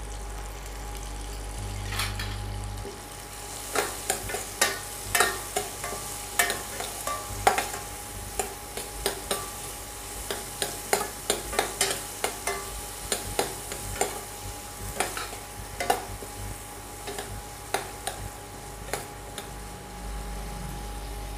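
A metal ladle stirring shallots, tomatoes and chillies frying in oil in a stainless steel kadai. From a few seconds in it scrapes and knocks against the pan about once or twice a second. Under it is a light sizzle and the steady hum of an induction cooktop.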